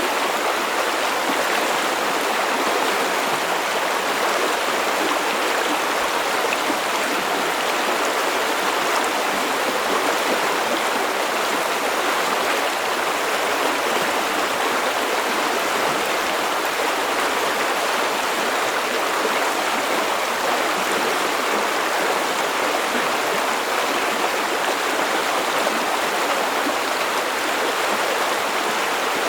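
River water flowing over rocks, a steady rushing with no change in level.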